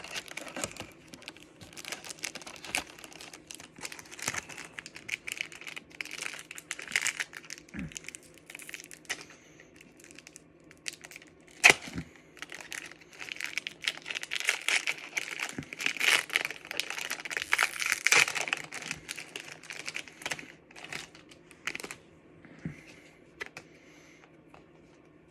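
Pokémon booster pack's foil wrapper crinkling and tearing as it is opened by hand, in irregular crackles with one sharp crack about twelve seconds in. It grows quieter near the end.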